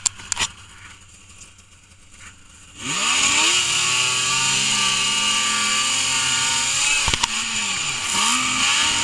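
Yamaha snowmobile engine revving up about three seconds in and running hard at a high, steady pitch as the sled climbs through deep snow. Near the end the revs drop briefly, then rise again.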